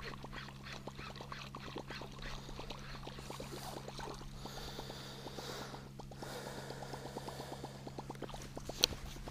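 Low-profile baitcasting reel being cranked during a topwater retrieve: a rapid run of fine ticks over a steady low hum, with a soft hiss in the middle and one sharp click near the end.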